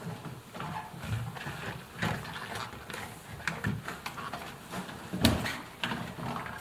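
Hands working a washing machine's rubber door seal onto the lip of the drum opening: irregular rubbing, squeaks and small knocks, with the loudest knock about five seconds in.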